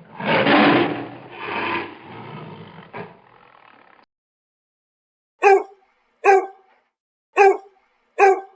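A loud, rough animal call lasting about three seconds and tailing off, followed after a pause by four short dog barks roughly a second apart.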